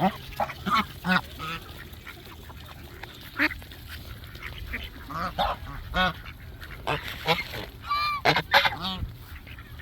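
A gaggle of geese honking: a run of short calls from several birds, irregularly spaced, with overlapping calls bunching up about eight seconds in.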